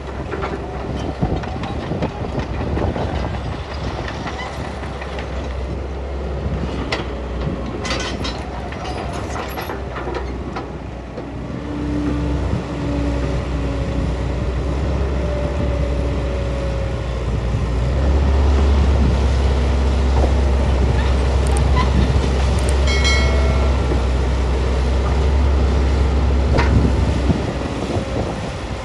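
Excavator at work loading: heavy diesel engine running with a deep, steady rumble and hydraulic whine, scattered metallic clanks. The rumble grows louder about two-thirds of the way in, and a brief high-pitched squeal comes about three-quarters of the way through.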